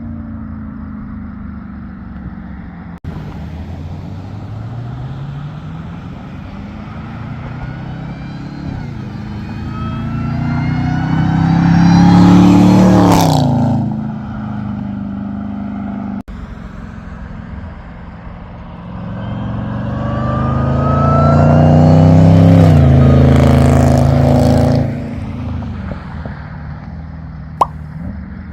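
Supercharged V8 of a Hellcat accelerating hard, twice. Each time the engine note and a thin supercharger whine rise in pitch together and build to a loud peak before falling away.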